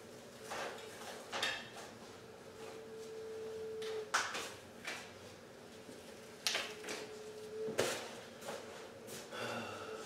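Hide being pulled and cut away from a hanging deer carcass: scattered sharp snaps and knocks. Twice a strained creak lasts a second or two and ends in a sharp snap.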